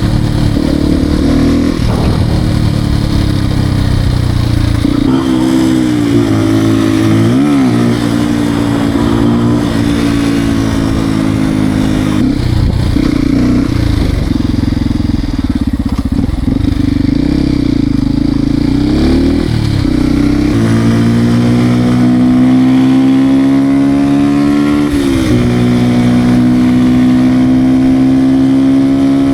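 Beta RR 125 R motard's single-cylinder engine under way, revving up and falling back repeatedly, with the pitch dropping at gear changes and climbing long and steadily through the gears near the end.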